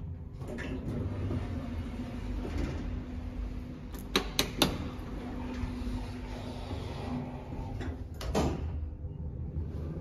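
Mitsubishi lift's sliding car doors working over a steady hum. A quick cluster of about four sharp clicks comes from the door mechanism around four seconds in, then a single loud knock near the end as the doors meet.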